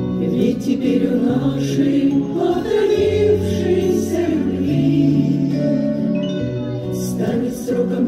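Women's choir singing with instrumental accompaniment, over held bass notes that change every second or two.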